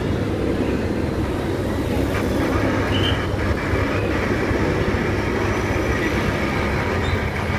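Steady low engine rumble from race escort motorcycles and a helicopter hovering overhead, with a short high whistle-like tone about three seconds in.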